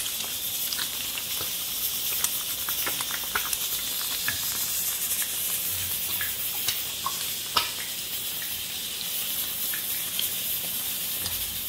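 An egg frying in hot oil in a frying pan: a steady sizzle with scattered crackles and pops.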